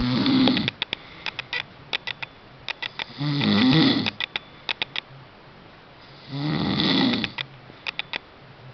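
A pet snoring: three loud, rasping snores about three seconds apart, with little clusters of quick clicks in the pauses between breaths.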